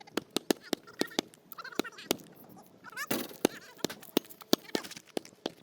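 A basketball being dribbled, a quick run of sharp bounces about four a second. A short high-pitched call comes about two seconds in, and a louder, noisier burst about three seconds in.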